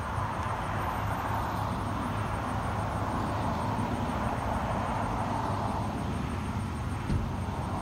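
Steady hum and noise of idling vehicles and traffic. Over it runs a faint, rapid high pulsing at about four or five beats a second, and there is a single faint click about seven seconds in.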